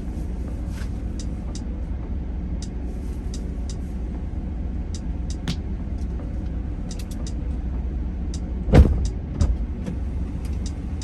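Steady low rumble of an idling vehicle, with two thumps a little under nine seconds in, the first the louder.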